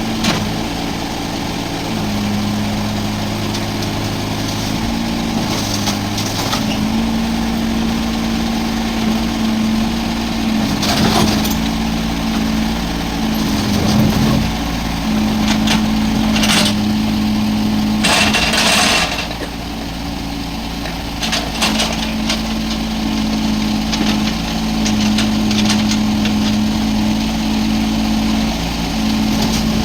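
Tata Hitachi Zaxis 33U mini excavator's diesel engine running, its note stepping up and down as the hydraulics work, with several brief noisy bursts over it, the longest about two thirds of the way through.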